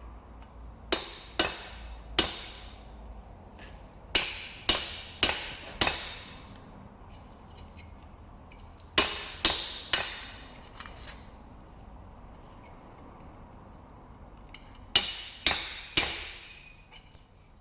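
Hammer driving a chisel into the steel outer casing of an old leaf spring bush in the spring eye: sharp metallic strikes with short ringing tails, in four quick bunches of three or four blows with pauses between. The blows are collapsing the seized bush casing inward so it starts to peel away from the eye.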